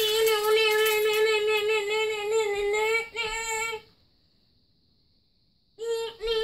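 A high voice singing one long held note, slightly wavering, for about four seconds with a brief break near the end of it, then a second short sung note near the end.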